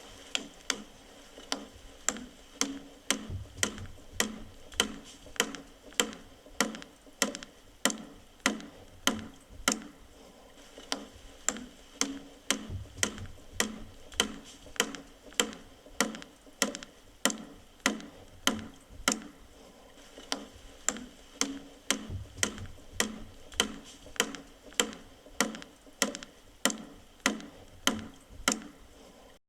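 Wooden mallet driving a wooden peg into wood: a steady series of sharp knocks, about three every two seconds.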